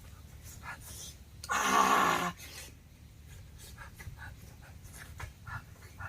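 A short animal cry lasting under a second, about a second and a half in, over a steady low hum with faint scattered clicks.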